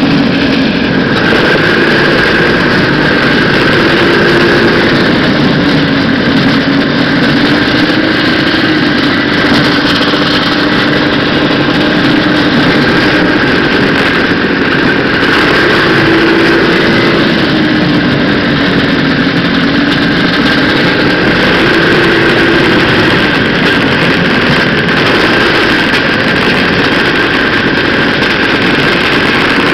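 A 1979 Arctic Cat El Tigre 6000 snowmobile's two-stroke engine running under way, loud and continuous. Its pitch rises and falls gently as the throttle eases on and off.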